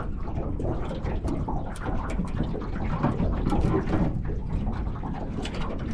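Wind buffeting the microphone over water lapping against the hull of a small aluminium boat, with scattered light clicks.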